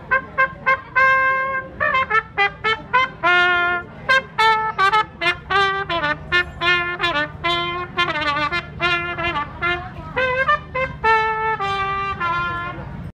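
Solo trumpet playing a lively melody of many short, separated notes with a few longer held ones.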